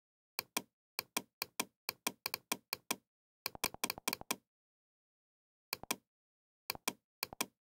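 Computer mouse button clicking: sharp clicks, mostly in quick pairs, coming fast for about four seconds, then after a pause three more pairs near the end.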